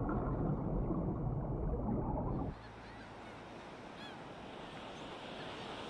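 Low underwater rushing noise that cuts off suddenly about two and a half seconds in. It gives way to a faint wash of open water with a few faint bird calls.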